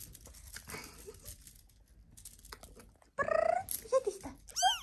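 Lilac British shorthair kitten mewing loudly: a few high cries in the second half, the last one arching up and down in pitch. She is crying to be let out of the box.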